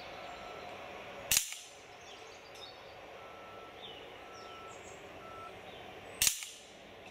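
FX Impact air rifle firing .177 pellets at a target 30 yards off: two sharp shots about five seconds apart.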